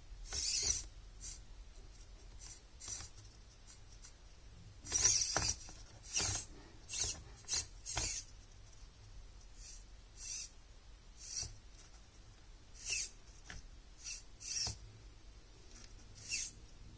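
LDARC X43 1/43 micro crawler's tiny motor and gearbox whirring in short throttle bursts as it creeps over rock, about a dozen and a half separate blips, the loudest about five seconds in.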